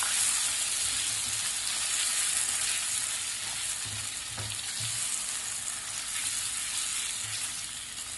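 Marinated chicken pieces sizzling as they fry in hot oil in a pot while being stirred with a spatula, a steady sizzle that fades slightly toward the end. A few soft knocks of the spatula against the pan come about four to five seconds in.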